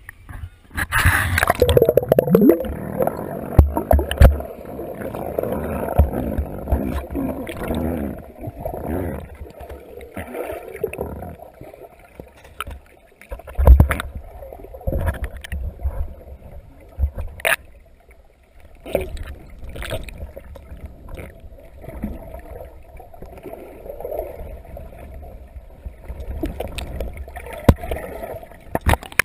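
Muffled water sloshing and gurgling with low, uneven thumps, heard from an action camera held underwater.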